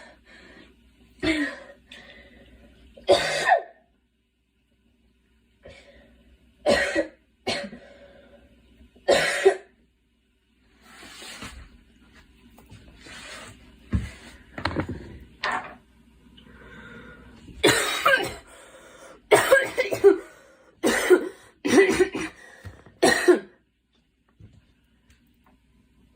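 A girl coughing over and over, about fifteen separate coughs. There is a short pause a few seconds in, and the coughs come faster in the second half.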